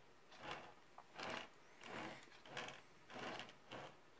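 A round display turntable being turned by hand in short pushes, giving about six faint, soft rubbing sounds evenly spaced.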